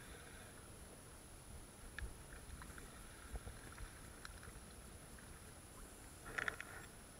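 Gentle lapping of shallow sea water, with a few faint clicks and a short, louder rustle near the end.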